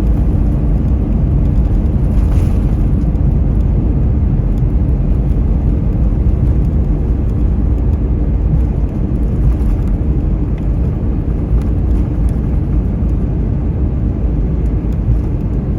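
Cabin noise of an Airbus A321neo rolling on the ground after landing: a steady low rumble from its CFM LEAP-1A engines and the wheels, heard from inside the cabin.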